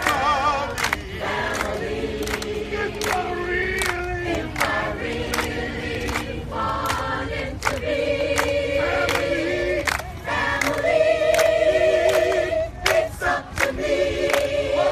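A group of people singing together in long held notes, with steady rhythmic hand clapping keeping the beat.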